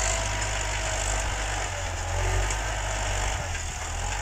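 Tractor engine running steadily while it pulls a plough through the field.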